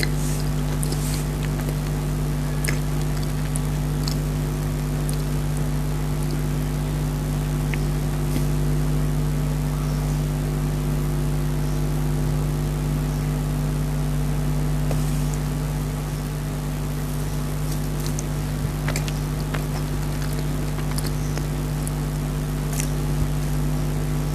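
Chewing and soft mouth clicks of a person eating chocolate cake, a few short clicks scattered through, over a loud steady hum made of several fixed tones.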